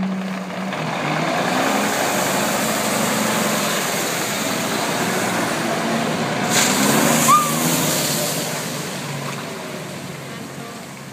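1981 Peterbilt water truck driving slowly past, its engine running under a broad hiss of water spraying from the front spray bar onto the gravel, swelling as it draws level and fading as it moves away. A short sharp hiss comes about six and a half seconds in.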